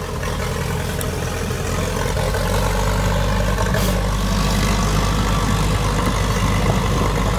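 Old Allis-Chalmers crawler dozer's engine running steadily.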